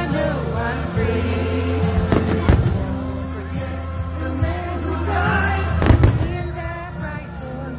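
Fireworks going off in a few sharp bangs: two about two seconds in, half a second apart, and the loudest just before six seconds. Under them runs pop music with singing and a steady heavy bass.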